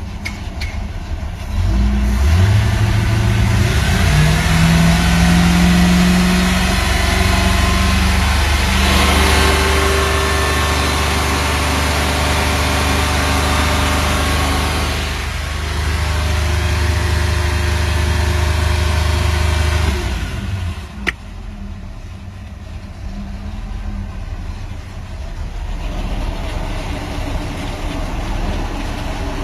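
Mercury MerCruiser 5.7 L (350 cubic inch) V8 marine engine running. It revs up sharply in pitch and level a second or two in, runs steadily at raised revs with a few changes in speed, then winds down and stops about two-thirds of the way through. A single sharp click follows, then a steady background noise.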